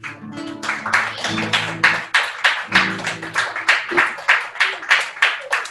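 Rhythmic hand clapping, about four claps a second, over an acoustic guitar strumming chords for a worship song.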